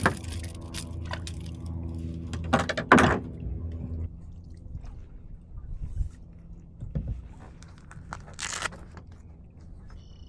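Kayak paddle being picked up and stroked: a few loud knocks and rattles against the hull about three seconds in, then quieter clicks, drips and blade splashes, with a brief splash near the end. A steady low hum sits under the first four seconds, then stops.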